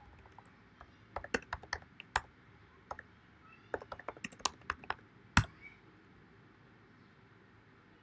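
Computer keyboard keys clicking as a command is typed, in two short runs. A single louder keystroke a little past halfway is the Enter key sending the command.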